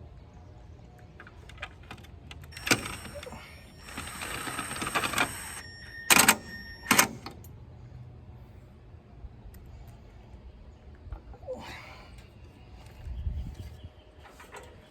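Clattering and rattling of tools and parts being handled during a trolling motor install, with a short rattling stretch and two sharp knocks about six and seven seconds in.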